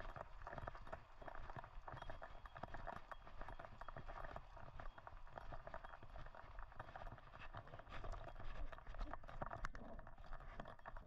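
Quick, rhythmic footfalls of a trotting dog and a person's boots, first on a wooden footbridge covered with wire mesh, then on a snow-covered path near the end.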